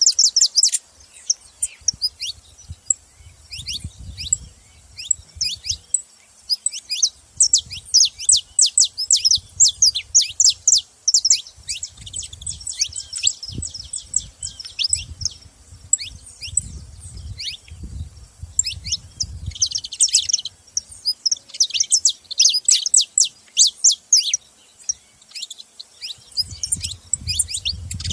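Saffron finches chirping and calling: dense runs of quick, high, downward-sweeping notes in bursts, with short gaps between them. A faint low rumble comes and goes underneath.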